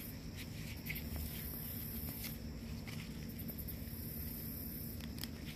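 Quiet outdoor background: a low steady rumble with a few faint scattered ticks.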